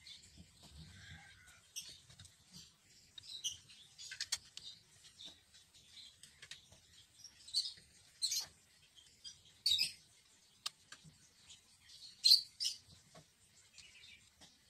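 Momo aftermarket steering wheel being fitted to its hub by hand: scattered small, sharp clicks and squeaks of parts being handled and pressed into place, the loudest about twelve seconds in.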